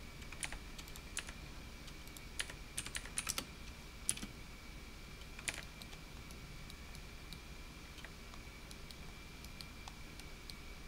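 Scattered clicks of a computer keyboard and mouse, bunched together in the first half and thinning to a few faint ticks later, over a faint steady high-pitched tone.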